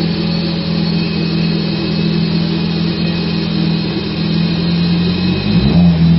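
Honda F20B inline-four engine in a CRX running steadily on a chassis dyno, its exhaust note holding an even pitch. Its note wavers briefly about five seconds in.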